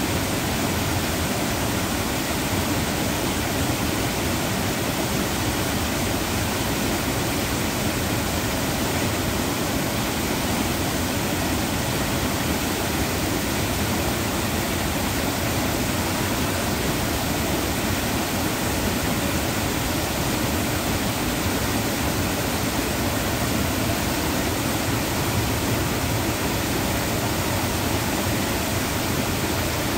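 Water pouring over a low dam onto the rocks below: a steady, even rush.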